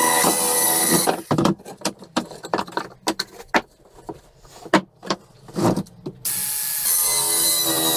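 Compact cordless circular saw cutting through pallet slats, stopping about a second in. Then scattered knocks and clatter of cut wood pieces being handled, until the saw starts up again a little after six seconds in and cuts once more.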